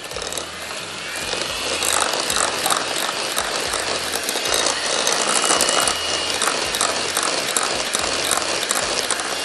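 Electric hand mixer running, its beaters whisking an egg into a creamed butter mixture in a glass bowl. It builds up over the first couple of seconds, then runs steadily with a thin motor whine and regular rattles of the beaters against the bowl.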